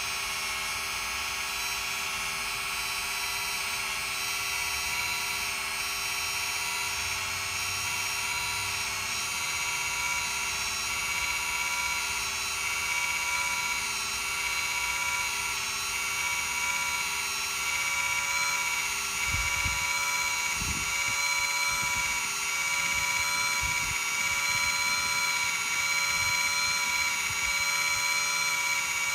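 Electronic parking-brake actuator motor on a Lexus rear caliper, powered straight from a battery, running with a steady high whine as it winds the caliper piston back to make room for new pads. A few low bumps come about two-thirds of the way in.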